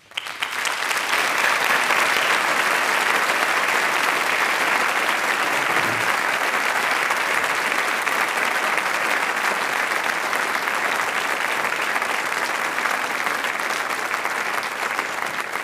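Audience applauding: the clapping swells within the first second, holds steady, and eases off a little near the end.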